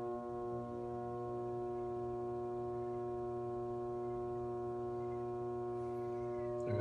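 Whirlpool Cabrio top-load washer giving off a steady electrical hum with many even overtones.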